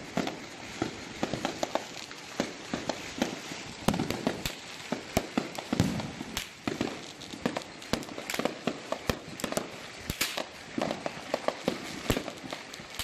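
Aerial fireworks going off in a continuous barrage: irregular sharp bangs and crackling pops, several a second.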